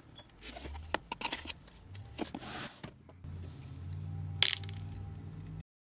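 Faint handling noise of a fingerboard deck being set down on a cutting mat: scattered light clicks, taps and rustles, with one sharper click about four and a half seconds in. A low steady hum joins in the second half. Everything cuts off abruptly near the end.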